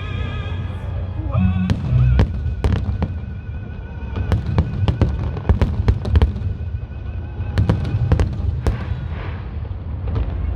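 Aerial fireworks bursting in rapid volleys of sharp bangs over a low rumble, with music playing underneath; the bangs come thickest about two seconds in and again in the middle, easing off near the end.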